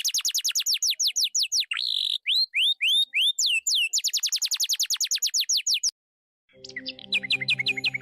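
High, bird-like chirping: rapid downward-swept chirps, about ten a second, broken about two seconds in by a short buzzy note and a few slower hooked whistles. The fast chirping resumes and cuts off abruptly about six seconds in. Near the end a music track with a low bass line starts under more chirps.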